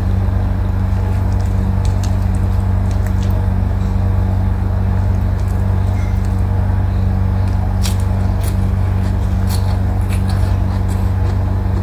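Eating sounds of someone chewing fried chicken and sucking sambal off her fingers, with a few sharp wet clicks between about 8 and 10.5 seconds in. Under them runs a loud, steady low hum.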